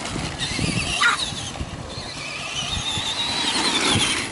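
High electric motor whine rising and wavering in pitch as a Traxxas Bigfoot RC monster truck is driven hard across dirt, mixed with the steady whine of drone propellers overhead.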